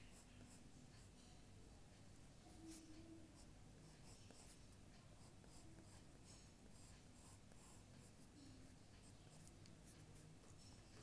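Faint, irregular scratching strokes of a drawing tool on paper over a low background hum.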